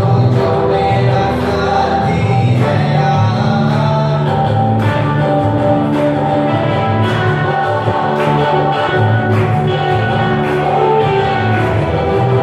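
Hindi Christian worship song: singing over a band backing with guitar and a steady beat.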